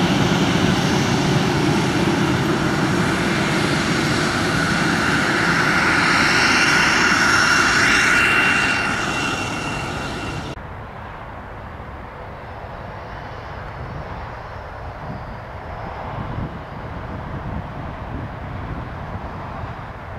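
Airbus A320 jet engines running close by with a steady high whine that swells louder about a third of the way in. About halfway through the sound cuts off suddenly to a much quieter low rumble.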